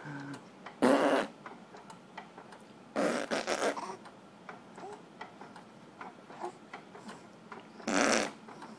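Three short, rough, throaty vocal noises, each under a second long: about a second in, around three seconds in, and near the end.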